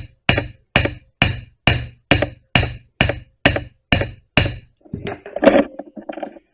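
Ball peen hammer tapping with its flat face on the rivet heads of a spliced .404 chainsaw chain, peening them flat: sharp metallic strikes at a steady pace of about two a second. After about four and a half seconds the tapping stops and a few irregular knocks and rattles follow.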